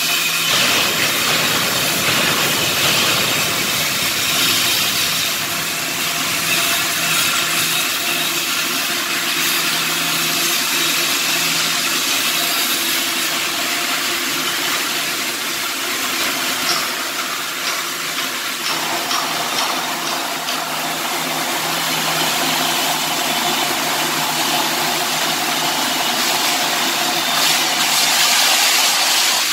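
Shielded metal arc (stick) welding: the arc hissing and crackling steadily, with a steady machine hum underneath.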